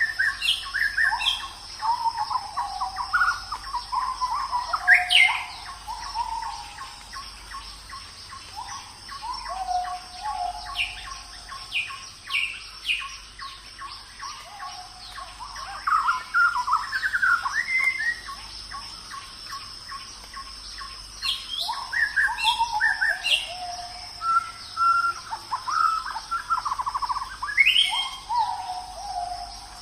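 Birds calling and chirping in repeated short, quick phrases, over a steady high-pitched drone of insects.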